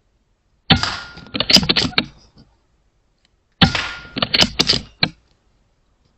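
Two shots from an Airmaks Krait L .22 PCP air rifle, about three seconds apart. Each sharp report dies away over about half a second and is followed by a quick run of sharp clicks.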